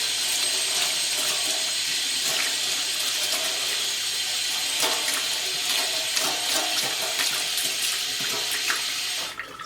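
Hot water running steadily from a tap for a soapy wash of motorcycle parts, with a few small knocks; it shuts off near the end.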